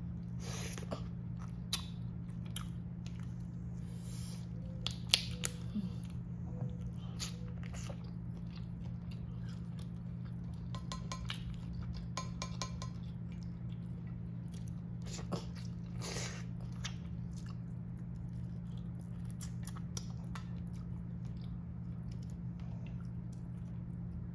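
Chewing and biting of buttery lobster tail meat, with scattered clicks and crackles of lobster shell being picked apart by hand, the sharpest a few around five seconds in. A steady low hum sits underneath.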